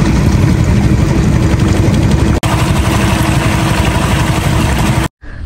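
Engine of a small motorboat running steadily at speed, with the churned wake rushing along the hull. It breaks off briefly about halfway through and cuts out just before the end.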